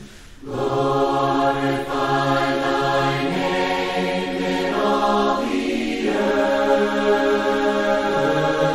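Voices singing a hymn a cappella in parts, holding long notes and moving together from note to note, after a brief breath at the very start.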